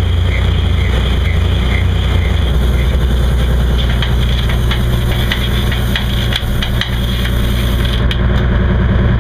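A beam trawler's engine running steadily, with a run of short clicks and knocks from about three seconds in.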